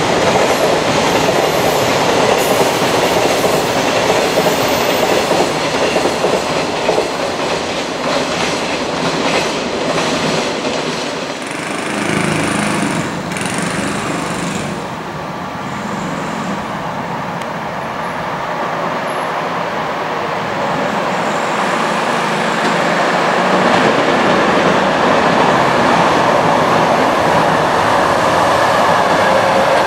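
Long container freight trains running over slab track at speed, the wagon wheels clattering over the rail joints. The sound drops back about twelve seconds in, then builds again as another electric-hauled freight train approaches and passes.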